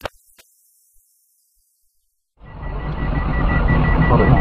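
Street traffic heard from inside a car, starting abruptly about two and a half seconds in, with a rapid high-pitched beeping over it. A brief click comes right at the start.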